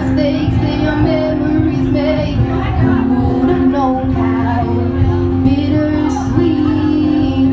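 Live acoustic singer-songwriter music: a voice singing a melody over sustained accompanying chords.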